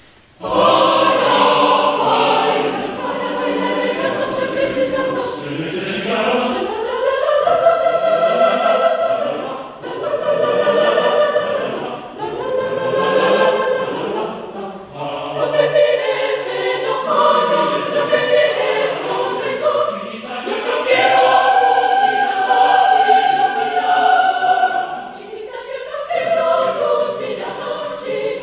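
Mixed choir of men's and women's voices singing in sustained chords, in phrases separated by brief dips, starting about half a second in.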